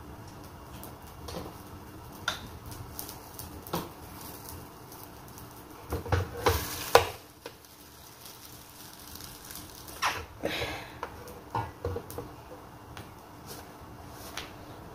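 Scattered clicks and knocks from working a hinged metal countertop press: dough balls set on the plate, and the lid shut and pressed down, with the loudest clatter about six to seven seconds in. Another burst of clacks comes around ten seconds in, and lighter clicks follow as the flattened dough discs are lifted off near the end.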